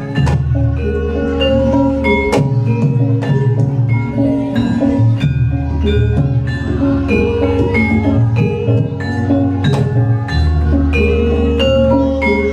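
Music of struck metal percussion in the style of a Javanese gamelan: quick repeated metallophone notes over long, deep low tones, played loud through a sound system.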